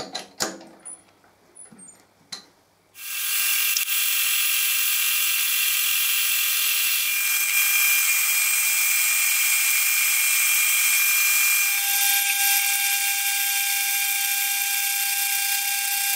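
Metal lathe cutting a steel bar: a loud, steady machining noise with a high ring, the tone changing about twelve seconds in as the tool moves from facing the end to turning the outside. Before it come a few sharp clicks and knocks from the chuck key tightening the bar in the three-jaw chuck.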